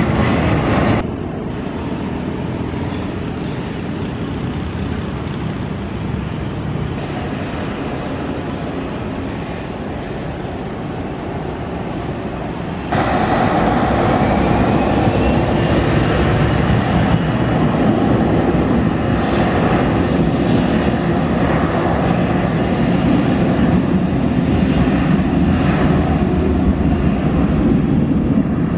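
Jet engines of a Boeing 737 climbing away after takeoff, a steady distant rumble. About 13 seconds in it switches to a closer Boeing 737 on the runway, its engines louder, with a whine that rises in pitch soon after as they spool up for the takeoff roll.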